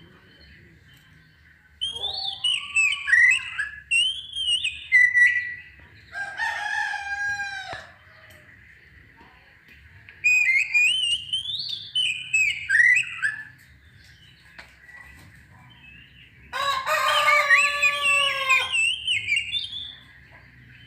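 Oriental magpie-robin (kacer) singing: two bouts of quick, varied whistled phrases, each followed by a harsher, buzzier call. The second harsh call is the longest and loudest. A faint steady high tone runs throughout.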